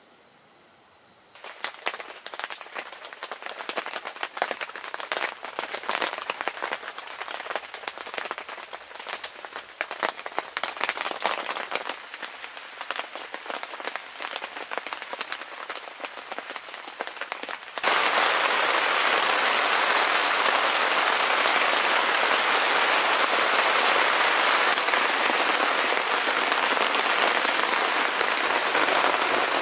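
Rain falling: a second or so in, scattered drops start pattering, and about two-thirds of the way through the sound switches suddenly to a louder, steady downpour.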